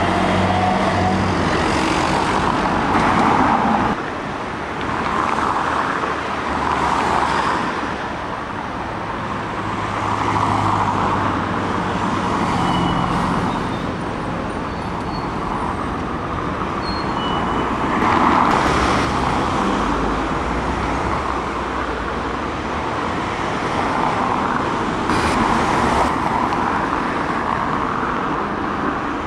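Diesel buses running and pulling away among road traffic, the noise swelling and fading as vehicles pass. A low engine hum at the start stops about four seconds in.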